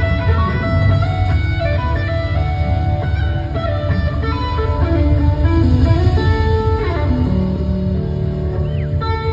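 Live rock band playing, led by an amplified electric guitar solo over drums and bass. The lead guitar holds sustained notes, with a few notes gliding in pitch near the end.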